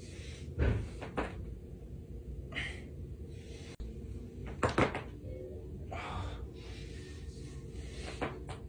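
Spinal joints cracking under chiropractic back adjustments: a series of sharp pops, the loudest about half a second in, a quick double pop near the middle and another pair near the end, with softer noises between over a steady low hum.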